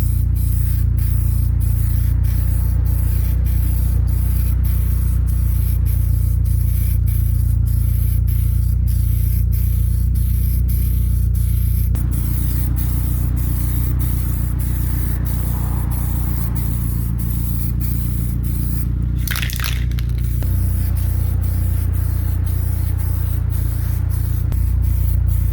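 Aerosol spray paint can hissing as coats of paint go onto a plastic rear spoiler, over a strong steady low hum, with a brief louder spray about nineteen seconds in.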